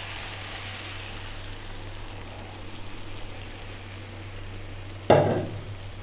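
Coconut milk pouring from a measuring jug into a hot pan of frying vegetables: a steady hiss of liquid filling the pan. One sharp thump about five seconds in.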